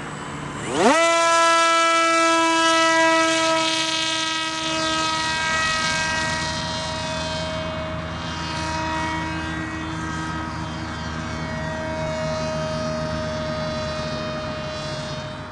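RC delta-wing plane's motor and pusher propeller opening up to full throttle at hand launch with a quick rising whine, then a steady whining drone that slowly fades as the plane climbs away.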